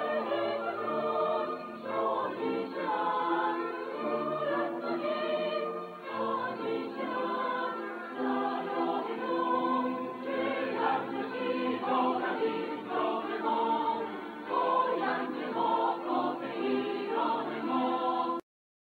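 Choral music: a choir singing with accompaniment, cutting off abruptly near the end.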